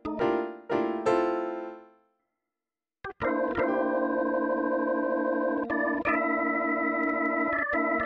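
Keyboard music: a few piano chords that ring and die away, about a second of silence, then steady held organ-like chords that change twice.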